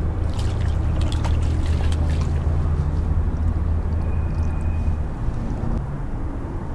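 Low steady hum of a boat engine running nearby, fading out about five seconds in, with a few light ticks in the first two seconds.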